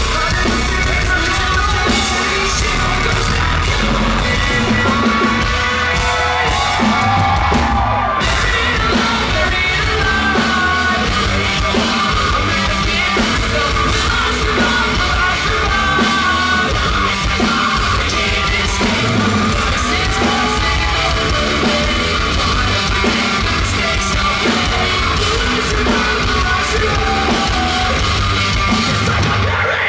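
Live post-hardcore rock band playing: distorted electric guitars, bass and drum kit under sung and yelled vocals, heard from the audience in a large concert hall.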